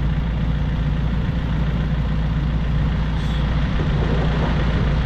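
Hidromek backhoe loader's diesel engine idling steadily with its front loader raised.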